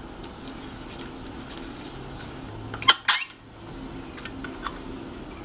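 Light metallic clicks and clinks from a hex key working the self-extracting crank bolt (a built-in crank puller) on a mountain bike crank arm. A brief, sharp metal clatter comes about three seconds in.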